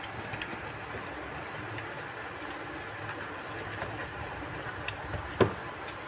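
Two cats scuffling on a concrete floor: light scattered knocks and scrapes over a steady rumbling background noise, with one sharper knock about five and a half seconds in.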